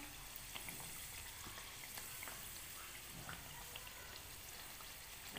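Green-pea kachoris deep-frying in hot oil in a kadai: a faint, steady sizzle with scattered small crackles.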